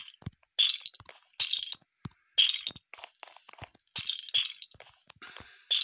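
Chains being hung up: a series of short, bright metallic clinks, roughly one a second.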